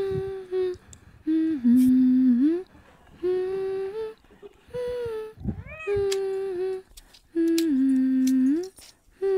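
A voice humming a slow melody in held notes, about six short phrases with brief gaps between them, each ending in an upward slide.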